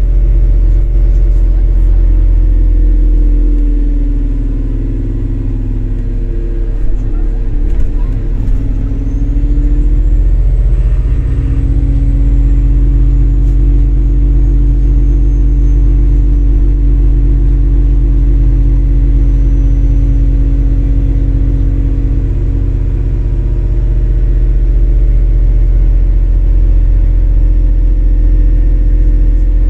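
MAZ-203 city bus running along the street, its engine and drivetrain heard from inside the passenger cabin as a steady low drone. The engine note dips a few seconds in and comes back up about ten seconds in.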